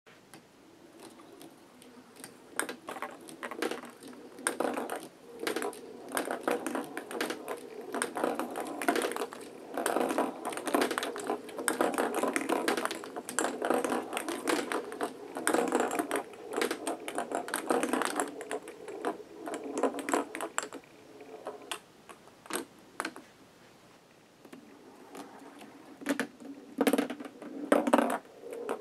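Ping pong balls rolling down plastic Hot Wheels track and through K'Nex flip-flop track switches, a quick run of light clicks and rattles as they knock the switch arms and wooden blocks and drop into plastic chutes. The clicking thins out past the middle, with a few sharper taps near the end.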